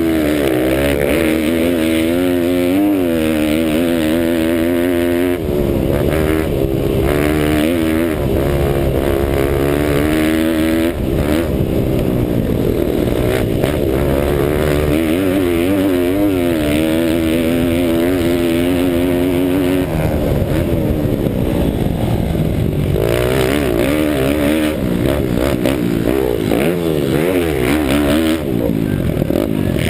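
Pit bike's small single-cylinder engine revving under race throttle, its pitch climbing and falling with throttle and gear changes. The revs drop briefly about five, eleven and twenty seconds in.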